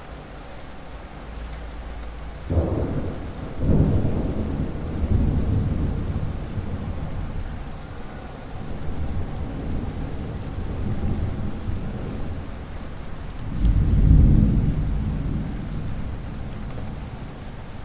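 Thunder rolling over steady rain: a long rumble begins about two and a half seconds in and rolls on for several seconds, and a second, louder peal comes later.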